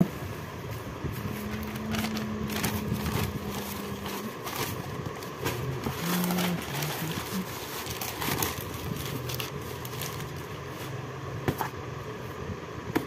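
Newspaper rustling and crinkling as it is spread and smoothed by hand inside a cardboard box, with a few short sharp knocks, the sharpest near the end.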